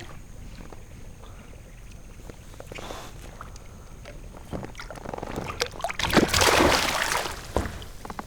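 Water splashing and sharp knocks against a kayak as a hooked bass is brought alongside and landed. The loudest splashing comes a little past the middle, with scattered knocks before and after it.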